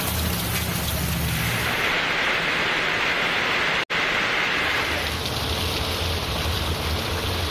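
Heavy rain pouring onto a wet street, a steady hiss with a low rumble underneath. The sound breaks off for an instant about four seconds in, then carries on.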